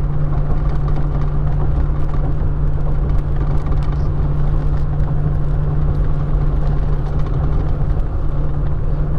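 Road noise inside a moving pickup truck's cab at road speed: a steady low drone of engine and tyres.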